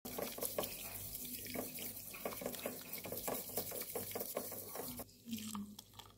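Water poured onto matcha powder in a ceramic bowl, and the tea whisked briskly with a bamboo chasen, a fast run of wet scratching strokes. The sound drops away about five seconds in.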